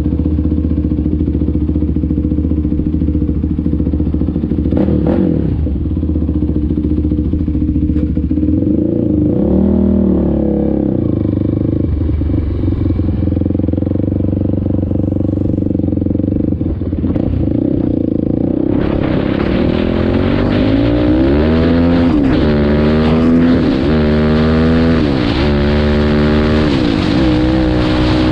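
Kawasaki KFX450R quad's single-cylinder four-stroke engine idling steadily, then revving briefly about ten seconds in. From about two-thirds of the way through it pulls hard, its pitch rising and dropping repeatedly as it shifts up through the gears, with a rushing hiss building as speed picks up.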